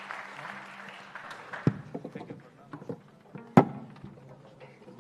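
Audience applause dying away into scattered claps, then the hushed concert hall with small shuffles and clicks. Two sharp knocks stand out, the louder about three and a half seconds in.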